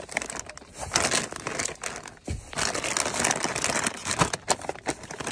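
Plastic food packaging and bags crinkling as hands rummage through a plastic basket of snacks, paper plates and wrapped food. The rustling is irregular, with a brief lull about two seconds in.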